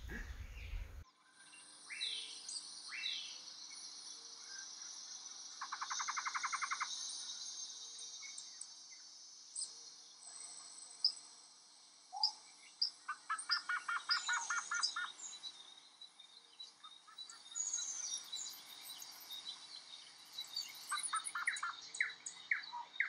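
Outdoor bird chirps and calls over a steady high insect drone, with two spells of rapid trilling.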